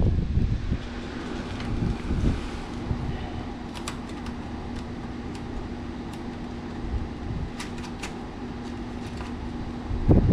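A steady low hum and rumble, with a few light clicks of small hardware and tools being handled while fasteners are fitted under the car.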